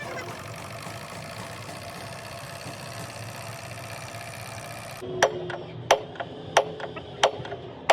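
A steady mechanical noise for about five seconds. It then cuts abruptly to a hammer striking metal, roughly one blow every two-thirds of a second, each blow ringing.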